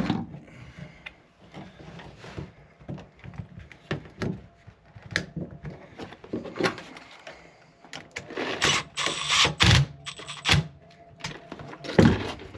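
Hands handling a plastic dryer receptacle and its wiring at an open wall box: scattered light clicks and knocks of plastic and wire, a longer scraping rustle about nine seconds in, and a sharp knock near the end.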